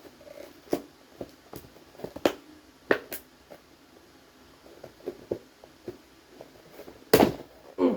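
Cardboard smoke-alarm boxes being handled and opened: scattered clicks and knocks, with one loud scrape about seven seconds in.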